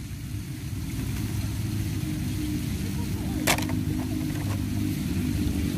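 Steady low engine-like drone, with a single sharp click about three and a half seconds in.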